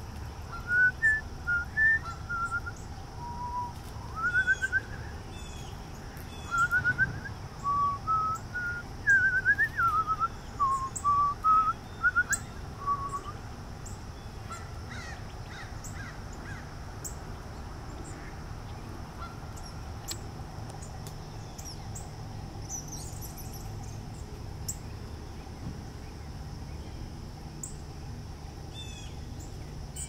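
A run of loud, clear whistled notes for the first thirteen seconds or so, mostly short rising slurs mixed with held notes that jump about in pitch. After that only faint, high bird chips remain over a steady background hum.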